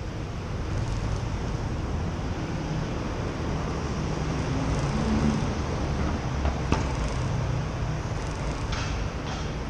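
Steady road-traffic noise at a city junction: a low engine rumble as vehicles pass, with one short sharp click about two-thirds of the way through.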